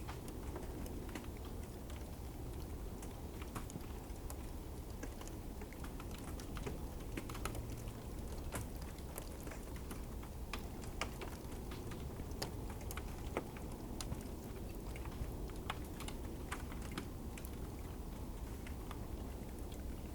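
Ice crackling: many sharp, irregular ticks and snaps, several a second, over a steady low rumble.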